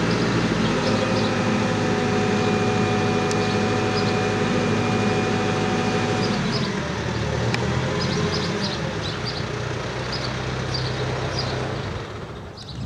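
Telehandler diesel engine running at raised revs with a steady whine, then the revs fall about six seconds in and it runs on at a lower speed.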